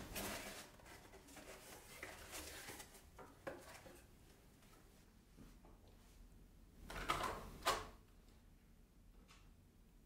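Cardboard packaging rustling and scraping as a box is opened, then a plastic battery pack pushed onto a Dyson V10/V11 cordless vacuum, with a scrape and a sharp click as it seats, about three-quarters of the way through.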